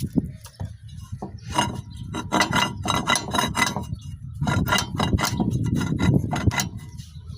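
Wheel ball bearing, just washed out with gasoline, being turned by hand: a gritty, rasping rattle in two long spells. The bearing is worn and due for replacement.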